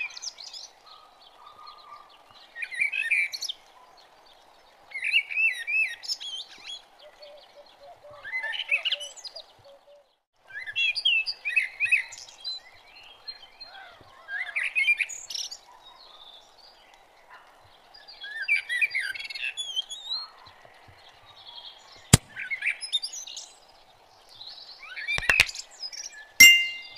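Songbirds chirping in short, quick phrases that recur every two or three seconds over a faint steady background hum, with a couple of sharp clicks near the end.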